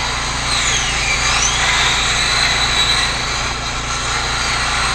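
A small motor running steadily and loudly, with a faint high whine that dips and then rises in pitch about a second in.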